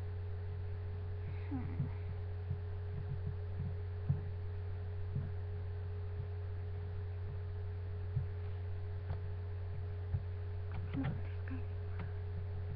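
Steady low electrical hum with a fainter steady tone above it, under scattered soft taps and rustles; a faint murmur of a voice about eleven seconds in.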